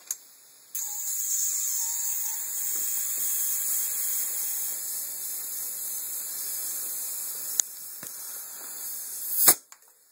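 Compressed air hissing steadily through the air line and valve of a 1969 Karmann Ghia's air suspension. The hiss starts abruptly about a second in and cuts off sharply with a loud click near the end.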